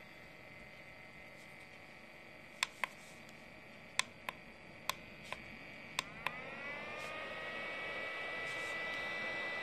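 Portable laptop cooler's fan, rated at 4,500 rpm, running with a steady whine. Eight sharp clicks, roughly in pairs, come as its buttons are pressed. After the last click the fan spins up: its whine glides higher in pitch and the rush of air grows steadily louder.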